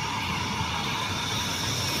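Jet airliner engines running, a steady rushing rumble with high whining tones over it, one of them slowly sinking in pitch.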